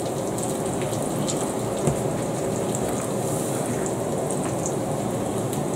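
Fat sizzling steadily in frying pans holding a haggis slice, a tattie scone and a fried egg, with scattered small crackles and a soft knock about two seconds in.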